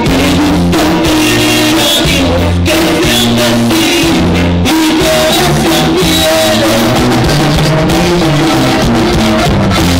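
A conjunto band playing a corrido: an instrumental stretch with a bass line stepping from note to note under sustained melody notes, with guitar and drums, loud and steady.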